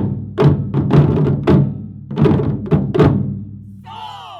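Japanese taiko drums struck hard in a driving rhythm, with deep ringing strokes. The strokes come about two a second and then die away, and a voice calls out near the end.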